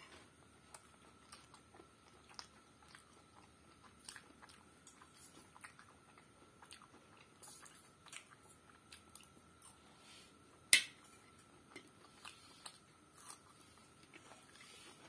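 Close-up mouth sounds of someone chewing egg pasta, with many small clicks of a metal spoon scraping and tapping the plate; one sharp click, the loudest, comes about eleven seconds in.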